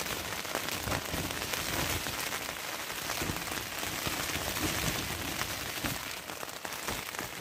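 Rain falling on a tent's fabric fly, heard from inside the tent: a dense, steady patter of many drop hits over a constant hiss.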